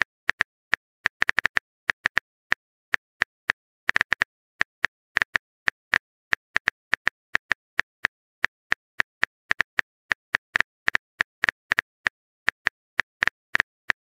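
Phone keyboard typing sound effect: short, sharp key-tap clicks, one per typed letter, coming unevenly at about three a second with brief gaps.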